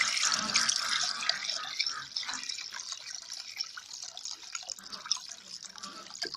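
Water being poured out for birds to drink, splashing and trickling. It grows gradually quieter and stops abruptly near the end.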